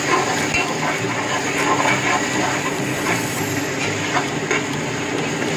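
Ginger-garlic paste frying in hot oil with onions in an aluminium pressure cooker, a steady sizzle with scattered small crackles as it is stirred.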